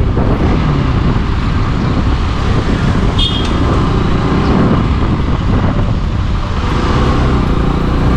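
Motorcycle ridden through city traffic: its engine running steadily under a heavy wind rumble on the microphone, with a brief high-pitched tone about three seconds in.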